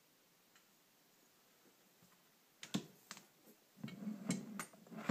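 Quiet, then a series of small, sharp clicks and knocks from about halfway in, thickening into a short clatter near the end: hard carburetor parts being handled and worked apart.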